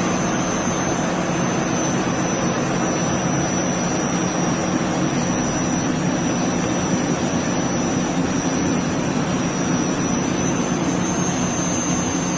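Jet engine running steadily: a constant roar with a thin, high turbine whine above it.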